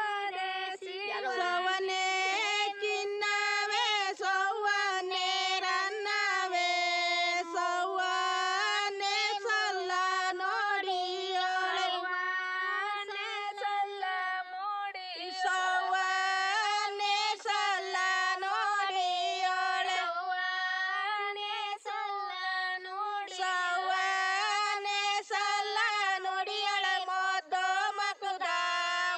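A woman's high voice singing a song unaccompanied, with no instruments.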